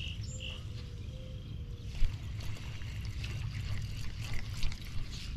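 Water splashing and lapping around a small boat over a steady low rumble, with a sharp knock about two seconds in and a bird calling during the first two seconds.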